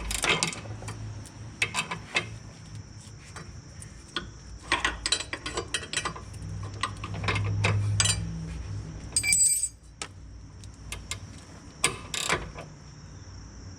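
Mountain ratcheting box wrench clicking in uneven runs as the top nut of a rear sway bar link is tightened, with a short metallic ring a little over nine seconds in.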